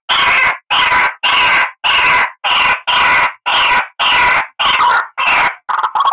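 White-breasted waterhen (ruak-ruak) calling: a loud series of about ten croaking notes at roughly two a second, turning into shorter, choppier notes near the end. This is the bird's own call, played as a lure for trapping.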